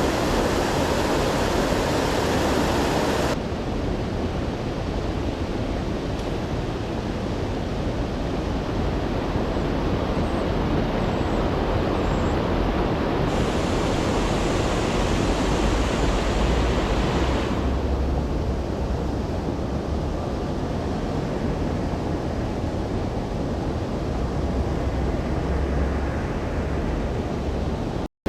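Steady rush of water pouring over a small creek waterfall, an even roar that shifts in tone abruptly a few times.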